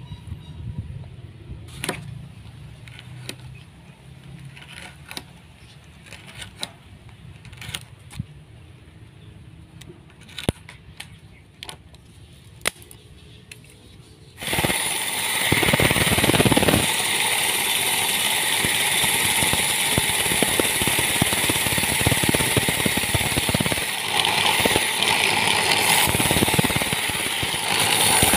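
Scattered light clicks and taps of small parts being handled. About halfway through, a loud, steady grinding noise takes over: an electric belt sander running with a small workpiece held against the belt.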